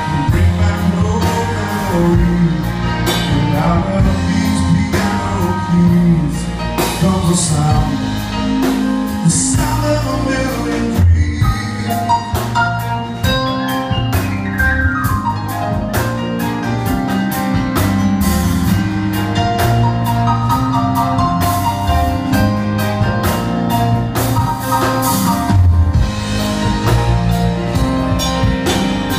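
Live country-rock band playing an instrumental break led by piano, over drums and bass, with a fast run down the keys about halfway through.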